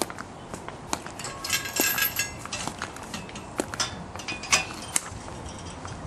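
Sharp clicks and metallic clinks, irregularly spaced, with a brief cluster of ringing clinks about one and a half seconds in: a ceremonial guard's footsteps and rifle on a stone plaza.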